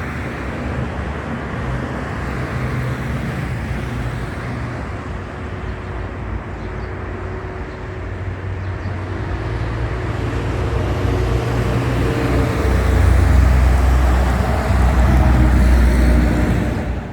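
Gusting squall wind over the microphone mixed with road traffic, with a vehicle's engine hum building louder in the last few seconds.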